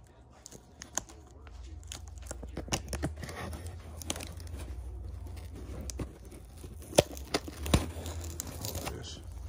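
Packing tape being torn and pulled off a cardboard shipping box, with crinkling and a run of sharp clicks and snaps as the box is handled. The two loudest snaps come near the end, over a steady low rumble that starts about a second and a half in.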